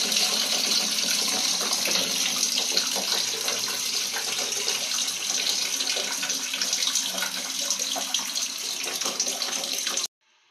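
Hot water from a plastic tap pouring steadily into a partly filled plastic bucket, a continuous splashing gush that stops abruptly just before the end.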